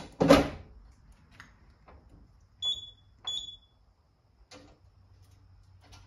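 Simplex 4006 fire alarm control panel giving two short high beeps about half a second apart as its buttons are pressed to reset the system. A short loud knock comes just at the start, and a faint click about a second after the beeps.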